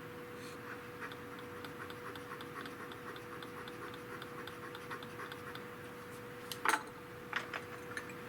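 Light, rapid ticking, several ticks a second, over a steady hum, giving way near the end to a few louder sharp clicks.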